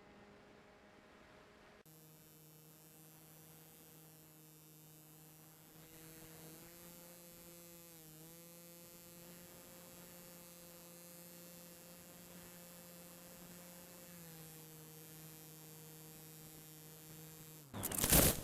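Small electric motor and propeller of a radio-controlled plane humming steadily as heard from the onboard camera, its pitch stepping up a little partway through, dipping briefly, then settling back lower as the throttle changes. Just before the end a loud rough noise cuts in.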